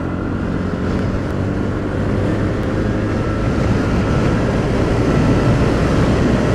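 TVS NTORQ XT scooter's single-cylinder 125 cc engine pulling at full throttle, mixed with wind and road rush, growing slowly louder as the scooter accelerates hard in sport mode.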